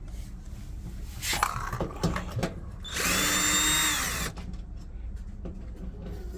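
Power drill running in one burst of about a second and a half, starting about three seconds in and whining down in pitch as it stops, with clicks and knocks of handling before it.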